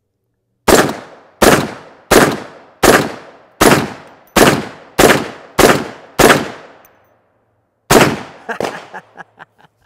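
CMMG Anvil semi-automatic rifle in .458 SOCOM fired rapidly with a magazine of mixed loads: ten loud shots, the first nine about three-quarters of a second apart and the tenth after a short pause. A fainter bang and a few light clicks follow.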